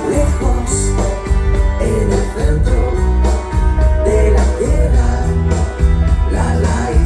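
A recorded pop-rock song with guitar, a steady drum beat and heavy bass, in an instrumental passage without sung words.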